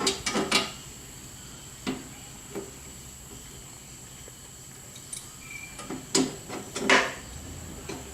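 Scattered knocks and clatter of booth parts being handled and fitted together: a few knocks near the start, single ones about two seconds and two and a half seconds in, and a busier run around six to seven seconds in.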